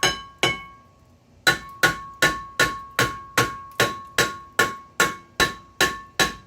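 Hammer blows on a rusted-on rear brake rotor of a 2008 Toyota Highlander, knocking it loose from the hub, each strike ringing. Two strikes, a pause of about a second, then a steady run of about two and a half strikes a second.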